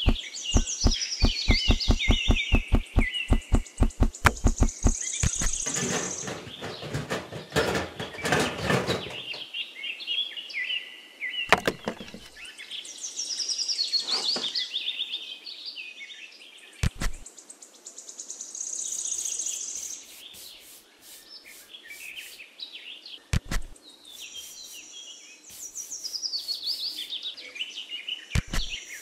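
Birds chirping and tweeting in repeated short falling calls, over a fast run of sharp taps, about five a second, in the first five seconds, then a few single knocks spread through the rest.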